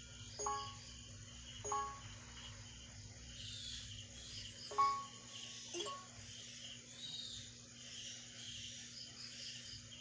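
Four short ringing pings, each a brief clear tone, as hits land on a struck object, over a steady pulsing chorus of crickets.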